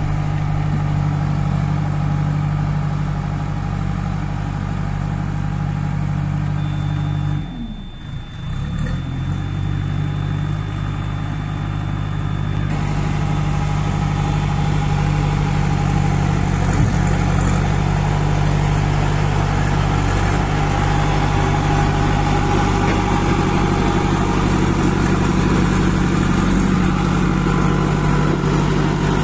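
Kirloskar diesel engine of a JCB 2DX backhoe loader running steadily. About seven and a half seconds in, its speed dips sharply and recovers within a second or two.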